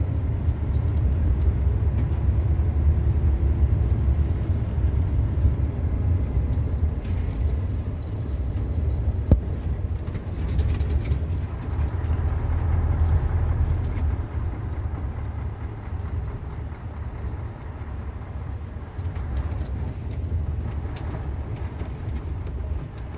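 Steady low drone of a truck's engine and tyre rumble on a snow-packed gravel road, heard from inside the cab. A single sharp knock about nine seconds in.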